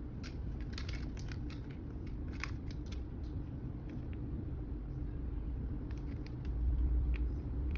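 Hands squeezing a 3D-printed sign letter, giving faint scattered clicks of handling over a steady low background rumble that swells slightly near the end.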